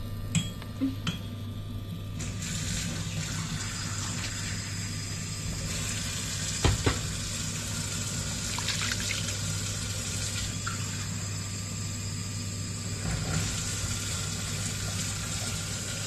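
Water heating in a frying pan of fried chicken pieces, a steady hiss that sets in about two seconds in, over a low electrical hum. There are a few light knocks against the pan near the start and once in the middle.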